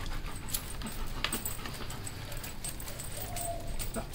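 Black Labrador retriever giving a brief, steady whine about three seconds in while its wet coat is scrubbed by hand, with scattered small wet clicks and splashes.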